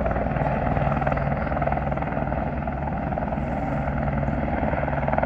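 Firefighting helicopter's rotor and engine running steadily with a rapid, even blade beat as it flies back over the sea to scoop water.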